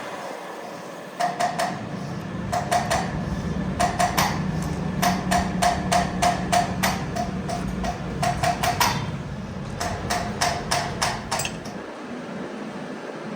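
A hammer striking metal in quick runs of blows, each with a short ringing note, over a steady low machine hum.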